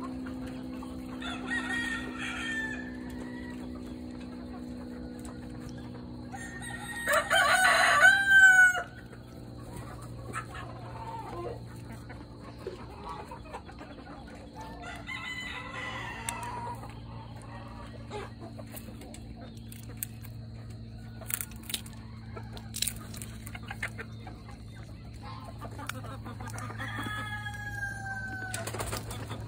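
Chickens calling in the coop, with a rooster crowing loudly about eight seconds in and shorter calls around two, sixteen and twenty-eight seconds. A steady low hum runs underneath.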